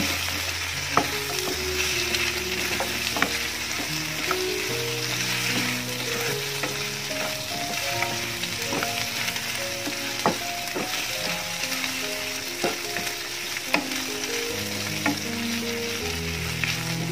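Masala-coated chicken pieces sizzling in a little oil in a non-stick pan while a spatula stirs them, with scattered sharp clicks of the spatula against the pan. This is the last dry-frying stage of a Kerala-style chicken fry, the water cooked off. Soft background music with a slow, simple melody plays underneath.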